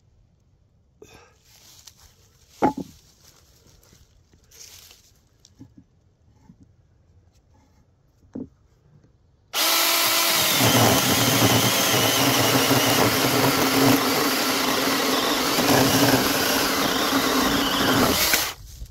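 Battery-powered 6-inch mini chainsaw starting suddenly about halfway through and cutting through a wooden board with a steady motor and chain sound for about nine seconds, then stopping abruptly just before the end. Before it, a couple of sharp knocks.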